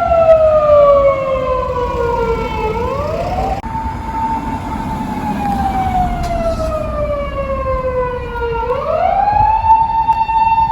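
Japanese police car siren wailing loudly: a long tone that falls slowly, then rises quickly and holds high, twice, with an abrupt break about three and a half seconds in. A low rumble of traffic runs underneath.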